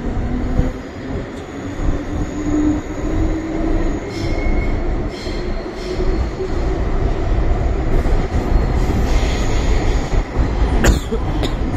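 MTR M-Train electric multiple unit under way: a steady low rumble of steel wheels on rail, with brief high wheel squeal about four seconds in and again around nine seconds, and a sharp click near the end.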